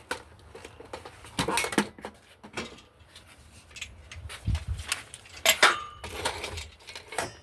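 Metal gear being handled: a few scattered sharp clanks and clinks, with a dull thump about four and a half seconds in.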